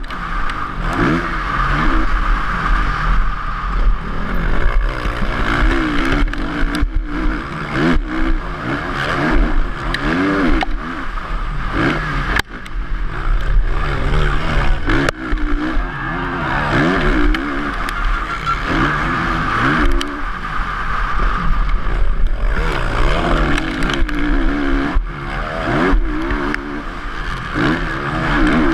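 Motocross bike engine heard close up from on board, revving up and dropping back again and again as the rider works the throttle and gears around the track, with scattered sharp knocks.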